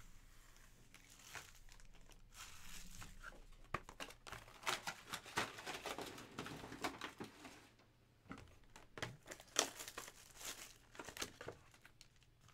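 Plastic wrapping of a trading-card box crinkling and tearing as hands unwrap the box and handle its pack: quick sharp crackles, thickest in the middle, with a short lull about two-thirds through.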